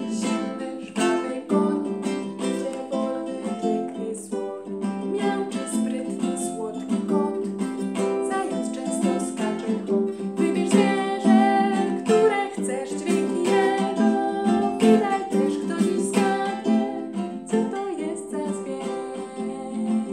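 Ukulele strummed in a steady rhythm, chords with a picked melody over them.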